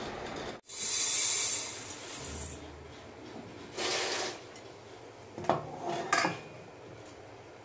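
Kitchen tap running into a stainless steel bowl for about two seconds, then a second short run of water. A few sharp clinks follow as the steel bowls are knocked together.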